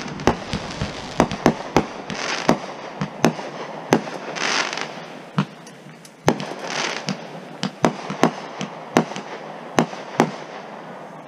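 Aerial fireworks going off: an irregular string of sharp bangs, at times several a second, with three spells of hiss lasting about a second each.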